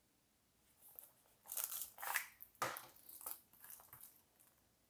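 Shrink-wrapped Blu-ray case slid out of its cardboard slipcover and handled, the plastic wrap crinkling in a string of short rustles.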